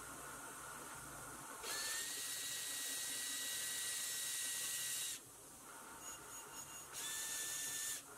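Cordless drill spinning a thin metal shaft with a small gear against a bench grinder's wire wheel, wire-brushing the part clean. The drill's steady whine and the hiss of wire bristles on metal come in twice: a long run of about three seconds, then a shorter one of about a second near the end. In between, only the grinder's quieter steady running is heard.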